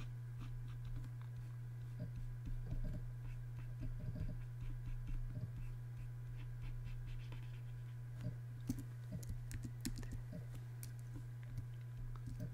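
Scattered light clicks and soft scratchy strokes of a computer keyboard and pointing device in use, over a steady low hum.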